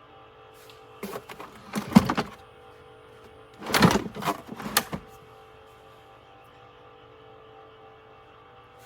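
Robot vacuum running with a steady hum, broken by two short bursts of clattering knocks, one just after a second in and a louder one about four seconds in.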